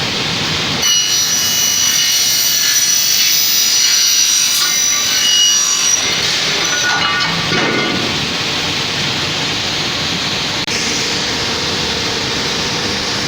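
Mecal Argus SW 452 CNC double-mitre saw cutting an aluminium profile: a high, ringing screech of the blades going through the metal starts about a second in and dies away around six seconds, after which the saw keeps running with a steady hum.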